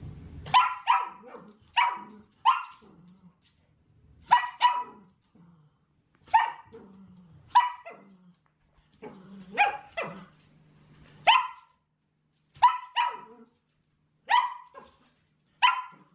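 Shetland sheepdog puppy barking: about fifteen short, sharp barks, many in quick pairs, with pauses of a second or two between them. This is the demand barking the owner is trying to bring under control.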